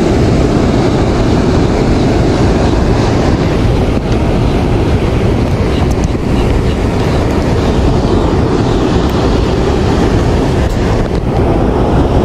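Wind buffeting the microphone, a loud steady low rushing, over flowing canal water.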